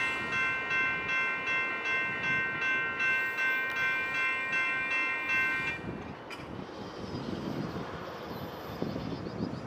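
Electronic railroad crossing bells ringing about twice a second, then cutting off abruptly a little over halfway through as the crossing gates begin to rise. A low, noisy rumble remains afterwards, with a single sharp click soon after the bells stop.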